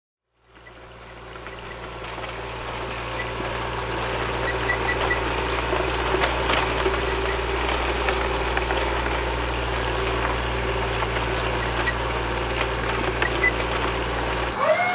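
Tank sound effect: a steady engine rumble with scattered clanks that fades in over the first few seconds. Near the end the rumble stops and a rising mechanical whine sets in and holds.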